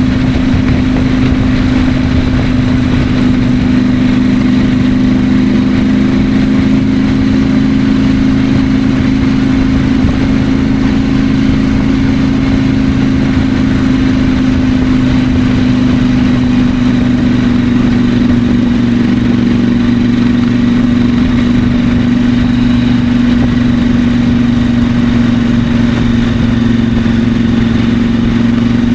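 2024 KTM 890 Adventure's parallel-twin engine running at a steady cruise, its note dipping slightly near the end.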